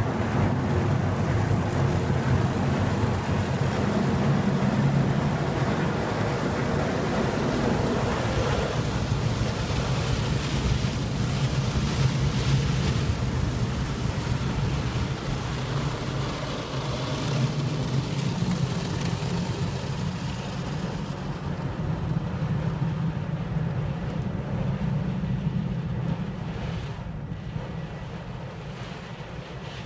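Christ Sirius rollover car wash heard from inside the car's cabin: green rotating brushes scrub over the body and windows amid spraying water, over a steady low hum of the machine. It gets quieter in the last few seconds.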